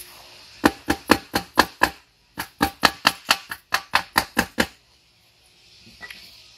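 Hand ratchet clicking in two runs of about four clicks a second, first about six clicks, then after a short pause about eleven more, as screws are run in to fasten a cover over a new gasket.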